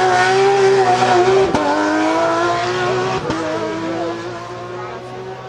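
Porsche rally car engine at high revs under hard acceleration, with two quick gear changes about a second and a half and three seconds in, the sound fading as the car pulls away.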